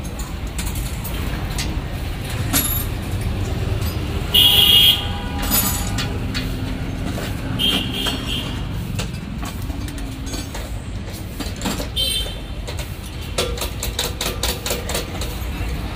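Steady traffic rumble with a vehicle horn honking about four seconds in, the loudest sound, and a shorter horn toot near eight seconds. Light metallic clicks of bolts and a hand tool on a motorcycle engine's side cover come and go, most of them near the end.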